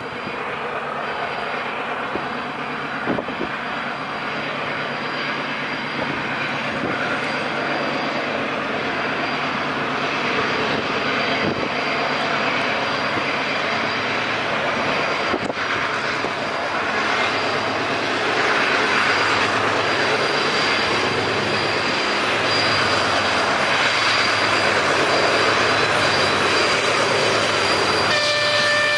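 GE C36-7i diesel-electric locomotive with its 16-cylinder FDL engine working hard as it hauls a loaded tank train, with the rumble of wheels on rail, growing steadily louder as it approaches. Near the end its horn sounds one steady chord.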